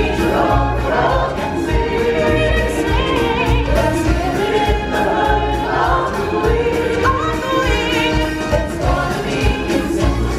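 Show music: a choir singing over a band track with a steady, pulsing bass beat.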